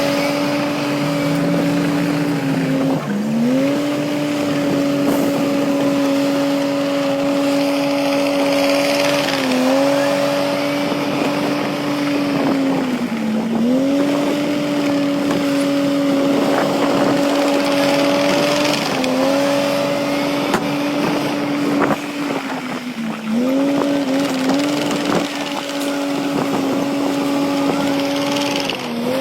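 Bulldozer's diesel engine running hard under load, its steady whine dipping in pitch and recovering every few seconds as it bogs down pushing fill and picks up again, over rough crunching and scraping of earth and rock.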